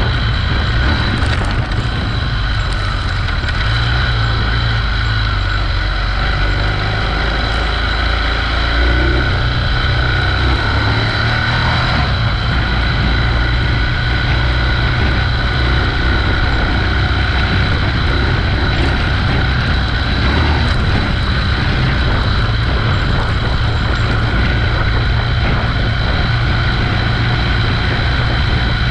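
A vehicle driving steadily along a dirt road: a constant low rumble of engine, tyres and wind on the camera microphone, with a steady high whine over it.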